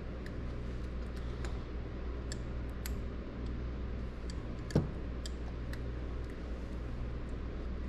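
Light clicks and ticks of small metal and plastic parts being handled and fitted by hand on a power antenna assembly, with one louder knock just before the five-second mark. A steady low hum lies underneath.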